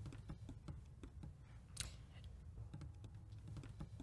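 Faint, irregular ticking clicks, several a second, with one sharper click about two seconds in.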